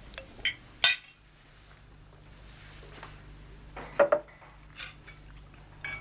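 Crockery and cutlery clinking at a dining table: two sharp clinks about half a second and a second in, a small cluster of clinks near four seconds and one more near the end, over a low steady hum.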